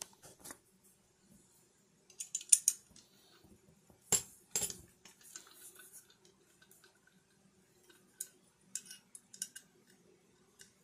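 Small metal bolts and a steel mounting bracket clicking and clinking as they are handled and set down on a desk, in scattered short clicks; the two loudest come about four seconds in.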